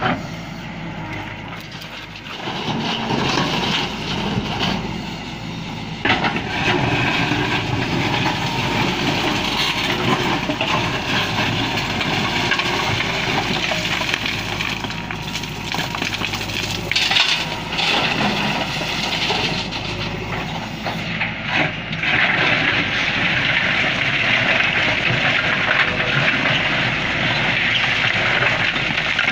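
JCB backhoe loader's diesel engine running under load while its rear bucket digs and scrapes through broken stone, with rocks grinding and clattering. The noise is loud and steady, with a denser, hissier scraping from about two thirds of the way in.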